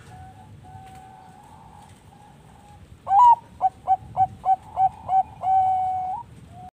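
Zebra dove (Bangkok-strain perkutut) singing. Soft cooing in the background is followed about three seconds in by a loud song: a rising opening note, about six quick short coos, and a long held final note.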